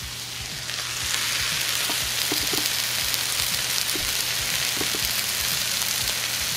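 Chicken fajitas with peppers and onions sizzling on a hot cast-iron skillet: a steady hiss that swells about a second in and then holds.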